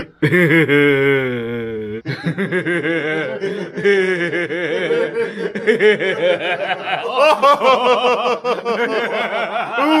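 A man laughing hard. The first two seconds are one drawn-out wavering laugh, followed by quick repeated bursts of laughter.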